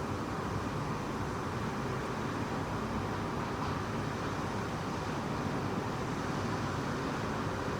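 Typhoon wind blowing hard and without let-up, a steady rushing noise.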